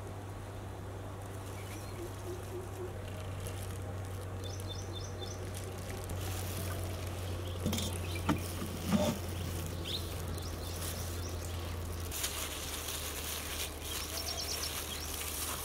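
Cooking oil poured from a plastic jug and trickling over spice-coated fish pieces on a metal platter, with a few soft handling sounds. Birds chirp in short high bursts twice, over a steady low hum.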